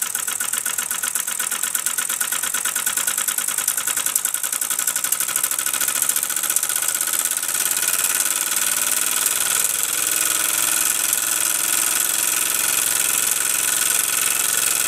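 Mamod SP6 single-cylinder model steam engine running fast, a rapid stream of steam exhaust beats with a hiss. The beats blur into a steadier, slightly louder hiss about halfway through, while the steam regulator is being adjusted.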